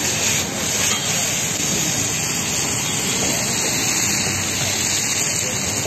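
Momos frying in oil in a wok over an open flame, with a steady sizzling hiss.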